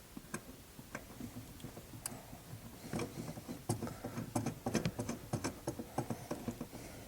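Faint, irregular small clicks and ticks as a new brake stop lamp switch is threaded by hand into its hole at the brake pedal bracket.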